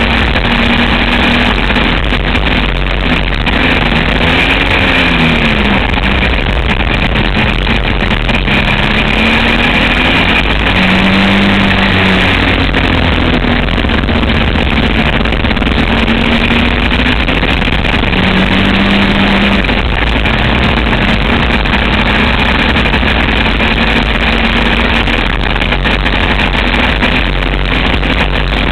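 Trike engine running hard at speed, its note rising and falling several times with the throttle and gear changes, under a dense rush of wind noise on the onboard microphone.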